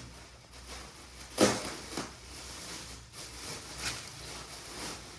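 Rustling and handling noise as items are unpacked, with a sharp, sudden noise about a second and a half in and a smaller one half a second later.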